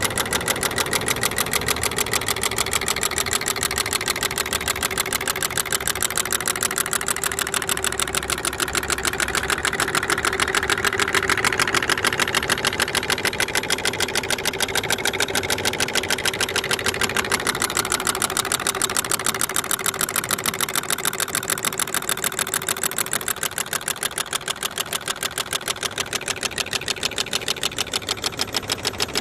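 Large DIY Stirling engine with a 6-inch flywheel, running on concentrated sunlight. Its moving parts make a fast, even clatter that swells a little about a third of the way in.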